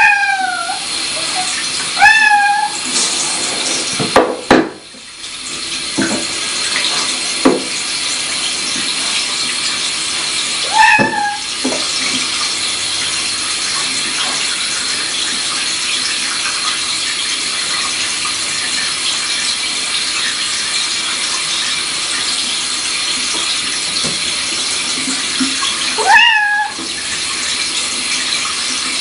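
A cat meowing four times, short falling calls, while being shampooed, over steady running water. A few soft knocks come in the first quarter.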